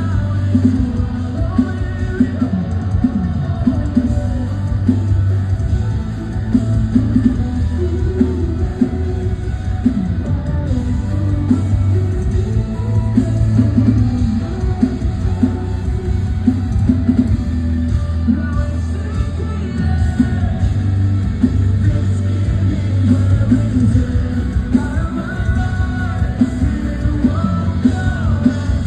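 A rock band playing live through a club PA, with a singer's voice over drums, bass and guitars, loud and heavy in the low end throughout.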